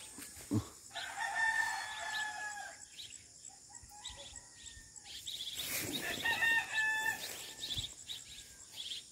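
A rooster crowing twice, each a long drawn-out call of about a second and a half to two seconds: the first about a second in, the second, higher-pitched, near six seconds in.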